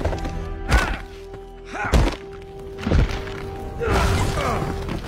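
Film soundtrack: music under four heavy thuds about a second apart, followed by a longer swell of sound with gliding tones about four seconds in.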